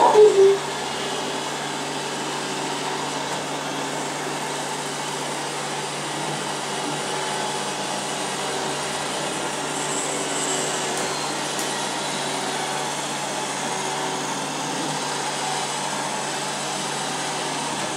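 Robot vacuum cleaner running steadily, an even whirring hum of its motor and brushes. A short pitched sliding sound is heard right at the very start.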